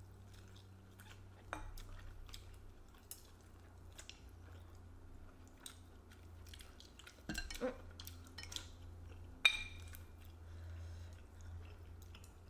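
Chopsticks and tableware clicking and clinking against ceramic bowls and plates at a meal, in scattered light taps with a cluster about seven to eight and a half seconds in and the sharpest clink about nine and a half seconds in. A low steady hum runs underneath.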